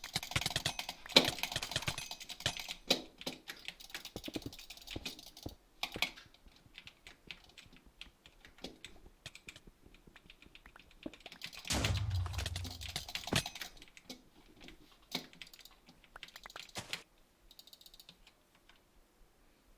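Rapid clicking in irregular runs of short taps, densest in the first two seconds and again around twelve seconds, where a low thump sits under the clicks; scattered single clicks in between.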